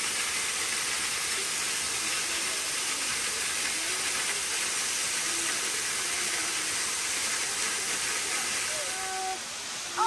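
Thin waterfall falling into a shallow rocky pool: a steady, even hiss of falling and splashing water.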